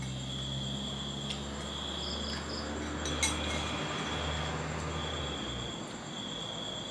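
A woman chewing a mouthful of rice and fish-sauce-pickled beetle larvae with her lips closed, with a low hummed 'mmm' that stops about five and a half seconds in. Crickets trill steadily in the background, and there is a single light click a little past three seconds in.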